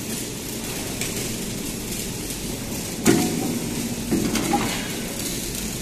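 Steady machinery noise from a beam welding machine. About three seconds in there is a sudden mechanical clunk with a short whir, and a second, shorter one about a second later, as the machine's mechanisms move.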